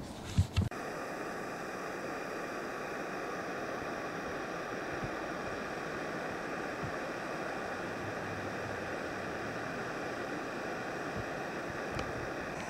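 A couple of sharp knocks in the first second, then a steady rushing noise like running water or wind.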